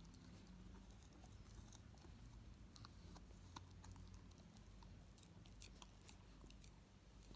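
Faint, scattered clicks and scrapes of a chow chow puppy's teeth biting and gnawing at a hard raw quince, over a low steady hum.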